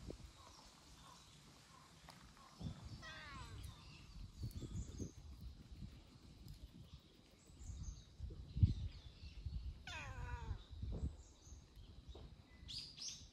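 A cat meowing twice, two long calls several seconds apart, each falling in pitch. Low rumbling and a few soft thumps lie underneath.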